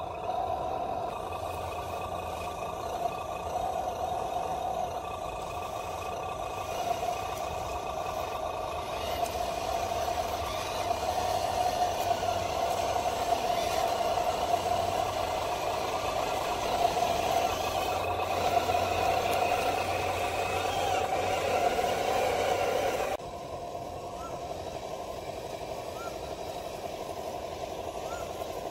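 Radio-controlled model crawler tractor running steadily as it tows a loaded log trailer, its drive giving a steady whine over a low hum. The sound drops suddenly in level about 23 seconds in.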